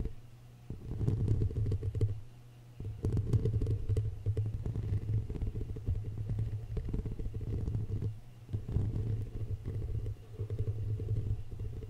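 Fingertips scratching directly on a foam-covered microphone, giving a close, muffled, low rumbling crackle that stops briefly a few times as the fingers pause.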